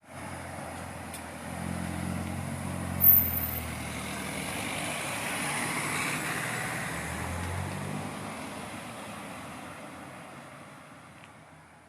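A tuned car's engine running as it drives past, swelling to its loudest about six seconds in and then fading away. One sharp exhaust bang cracks out about three seconds in.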